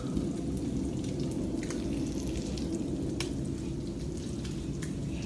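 Diced bacon and hash-brown patties frying on a propane flat-top griddle: a steady sizzle with scattered small pops of spitting fat, over a steady low rumble.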